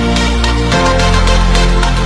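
Electronic background music with a steady beat and sustained bass; the chord changes about a second in.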